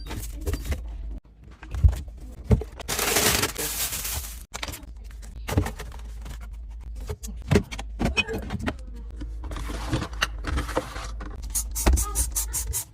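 Fridge contents and shelves being handled during cleaning: scattered knocks and clatters of containers, with a hiss lasting about a second about three seconds in and another near ten seconds in.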